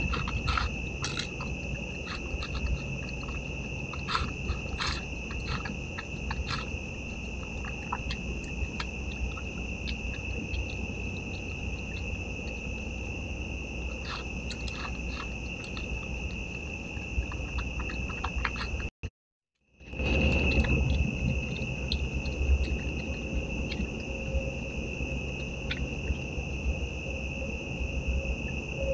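Steady high-pitched chorus of night insects, with scattered clicks and crunches from a Virginia opossum eating dry food out of a bowl. The sound drops out for under a second about two-thirds of the way through.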